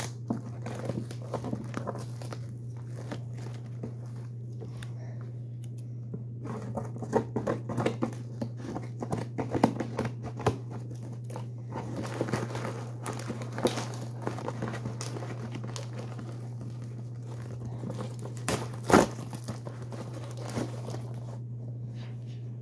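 Plastic mailing bag and plastic wrapping crinkling and rustling as they are handled and opened, with irregular crackles and one sharp knock late on, over a steady low hum.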